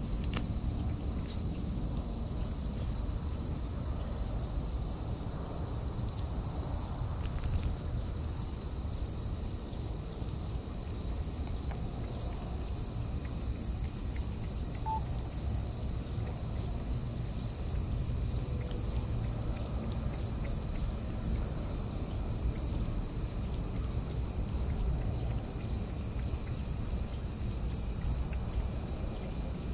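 Steady shrill chorus of insects, a high drone that steps up or down in pitch every several seconds, over a low steady outdoor rumble.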